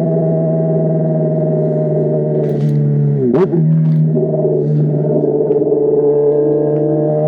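Honda CBR600RR inline-four engine running at steady, held revs with an even hum; about three and a half seconds in the pitch dips briefly and comes straight back, with a click.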